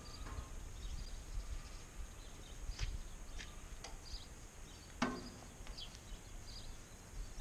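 Quiet outdoor ambience with scattered faint, short bird chirps, and a single sharp knock about five seconds in as the hose and metal trough at the back of the tanker are handled.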